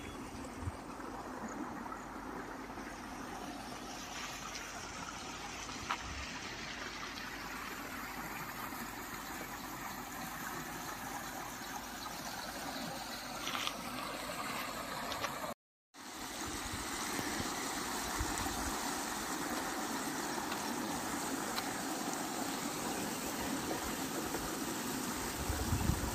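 Steady outdoor rushing noise, broken by a brief drop to silence about two-thirds of the way through.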